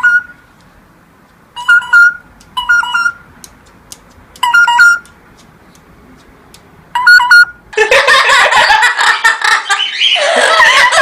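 A parrot repeating a short, high "hi" call four times with pauses in between. About eight seconds in, loud continuous laughter takes over.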